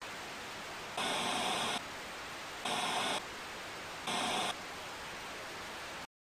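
Static-noise sound effect for a logo intro: a steady hiss with three louder bursts of static about a second and a half apart. It cuts off abruptly near the end.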